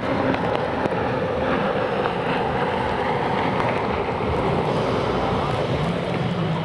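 Racing jet skis' engines running at speed, a steady drone, with wind buffeting the microphone.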